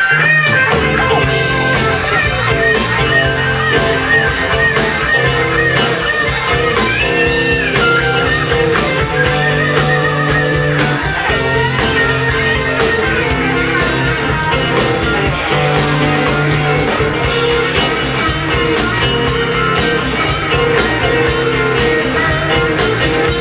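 Live rock band playing an instrumental stretch: a lead electric guitar plays bending, sliding notes over a steady bass line and drum kit.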